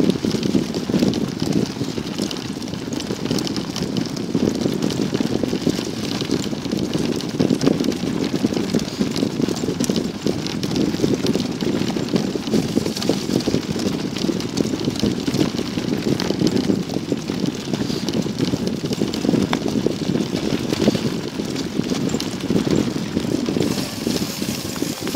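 Sacco dog wagon rolling fast over a dirt and gravel track: a steady low rumble from the wheels with a constant patter of small clicks and rattles.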